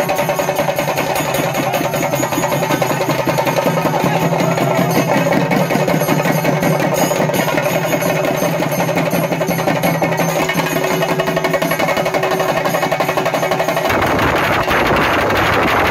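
Temple festival drums beaten in a fast, dense rhythm, with steady held notes sounding over them. About 14 seconds in, a low rumble like wind on the microphone joins.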